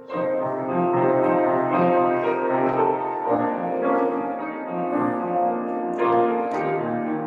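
Slow piano music: held chords that change about every three seconds.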